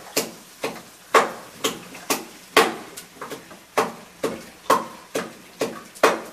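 Handfuls of raw chicken pieces dropped into an aluminium kadai, each landing with a sharp knock and a short metallic ring, about two a second.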